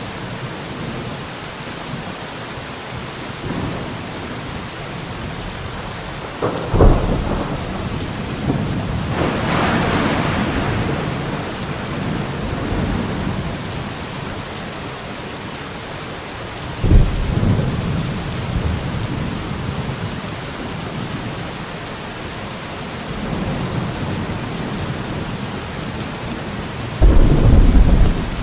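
Thunderstorm: steady rain hiss with three sudden close thunderclaps about seven, seventeen and twenty-seven seconds in, each trailing off in a low rumble, and a longer rolling rumble building around ten seconds in.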